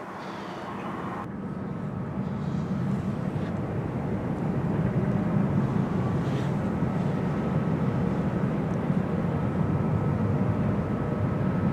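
Steady low rumble of a passing tug's diesel engine as it moves a loaded barge, growing louder over the first few seconds and then holding, with a faint steady whine above it.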